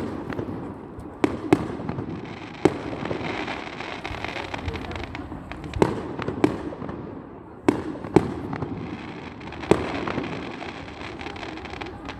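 A fireworks display: about nine sharp bangs of bursting fireworks at irregular intervals, one to three seconds apart, over a continuous noisy background from the display.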